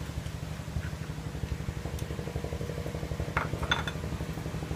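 Chopsticks clinking against a ceramic rice bowl a few times about three and a half seconds in, over the steady low hum of an electric stand fan.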